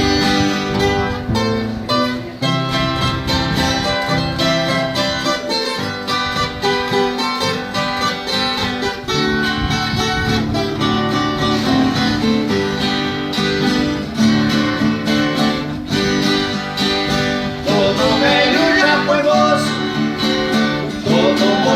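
Instrumental break of a Brazilian country song: acoustic guitars play a melody of quick plucked notes, with no singing.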